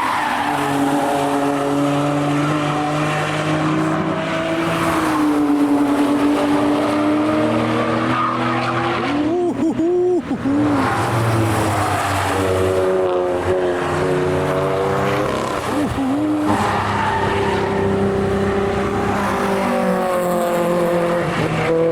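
Cars driving hard through a corner of the Nürburgring Nordschleife, their engines revving up and down through the gears, with tyres squealing and skidding.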